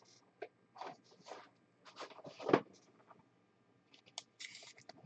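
Soft plastic rustling and short scrapes as a trading card is slid into a sleeve and a rigid plastic top loader. The loudest scrape comes about two and a half seconds in, and a longer rustle follows near the end.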